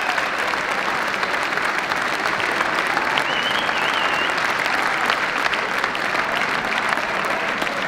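Audience applauding steadily, a dense patter of many hand claps.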